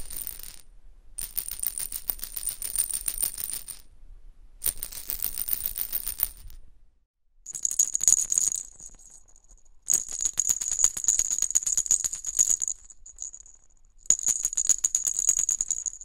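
Small plastic rattle inserts shaken in bursts of a few seconds, each a dense rapid clatter of the pellets inside. First a 22 mm rattle box insert, then, about seven seconds in, a 24 mm perforated rattle ball insert with a somewhat lower ring to its clatter.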